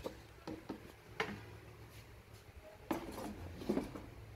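Plastic air filter box and ribbed rubber intake duct being handled and set down: a few separate knocks and clunks with some rubbing and rattling in between.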